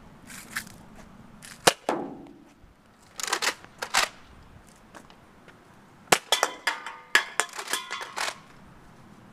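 Nerf Rival Apollo spring-powered blaster firing foam balls at cans and a metal stepladder: a sharp snap about a second and a half in with a brief ringing after it, a few more snaps between three and four seconds in, then a quick run of snaps and rattling clatter between about six and eight seconds in.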